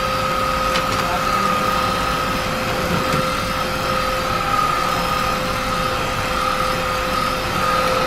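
Aposen H250 cordless stick vacuum running steadily: a constant motor whine over the hiss of its suction.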